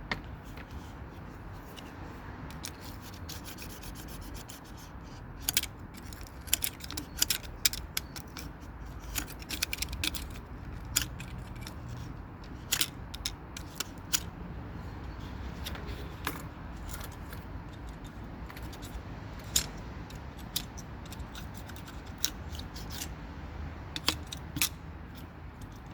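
Irregular sharp clicks and rubbing from a scooter wheel being handled and turned back and forth by hand. The wheel is stuck and won't spin freely. The clicks start about five seconds in.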